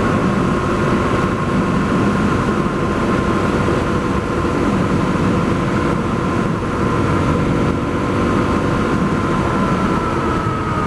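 Honda CRF250L's single-cylinder engine, breathing through an FMF Q4 HEX slip-on exhaust, running steadily while riding, with a low wind rumble. The engine note drops slightly near the end as the bike eases off.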